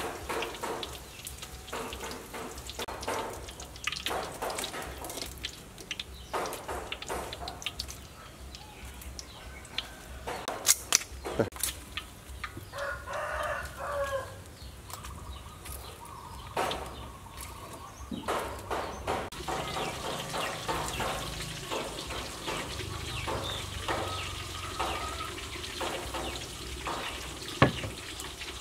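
A rooster crows once near the middle, with chickens clucking later on, over scattered clicks and taps of a wire strainer and tongs against a wok.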